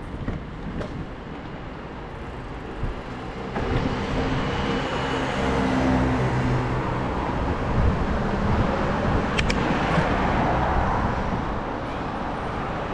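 Street traffic noise: a motor vehicle passes close by, its engine hum and road noise growing louder a few seconds in, with one brief sharp click late on.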